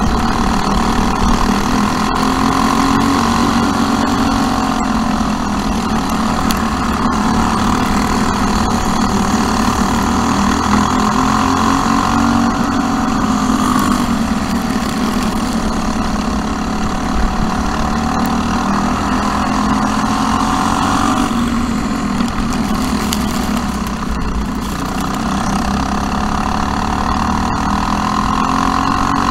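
A Briggs & Stratton LO206 single-cylinder four-stroke kart engine at racing speed, heard on board the kart. Its pitch climbs and falls back in a slow repeating cycle, about every 8 to 9 seconds, as it accelerates down each straight and backs off into each turn.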